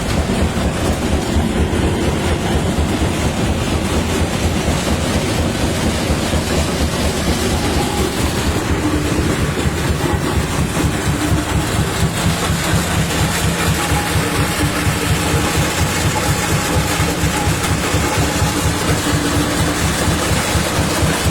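Stone crusher running, a loud, steady mechanical noise with a fast, continuous rattle.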